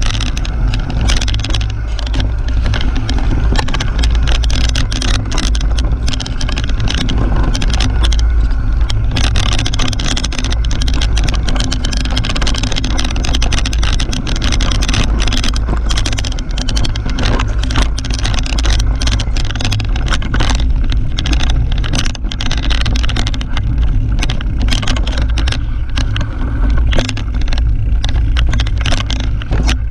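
Mountain bike ridden fast down a dirt forest singletrack: tyre and trail noise with constant rattles and knocks from the bike over bumps, under a heavy wind rumble on the GoPro's microphone.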